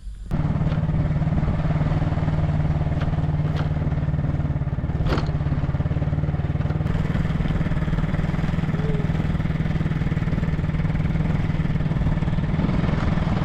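A small engine running steadily at an even speed, cutting in abruptly at the start.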